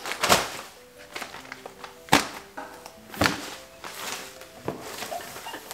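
Cardboard boxes and padded mailer packages being set down and shuffled on a couch: about four sharp thuds with paper and cardboard rustling between them, over soft background music.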